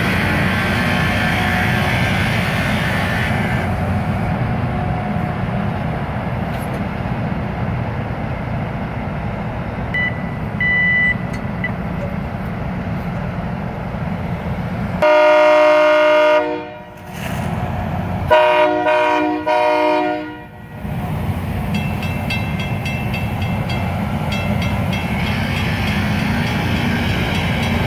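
Loram rail grinder grinding the rail as it passes: a loud, steady, harsh rush of stones on steel over the machine's rumble. Its horn sounds two blasts about halfway through, the second a little longer. Near the end a grade-crossing bell rings in a quick, even rhythm.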